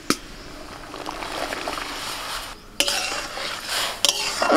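Peeled Manila tamarind fruits are tipped into an aluminium wok of salted water, then stirred with a metal spatula that scrapes and clinks against the pan, with a couple of sharp knocks near the end.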